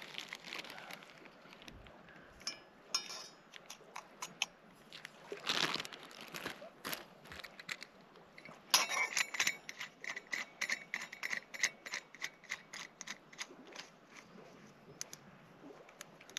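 Small handling sounds of camp coffee-making: rustling and crinkling with light clicks and clinks of utensils, including a quick run of ringing clicks about nine seconds in.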